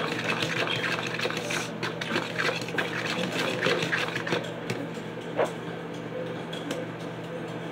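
Fork beating raw eggs in a plastic bowl: quick, rapid clicking and sloshing strokes that stop a little over halfway through, then a single knock.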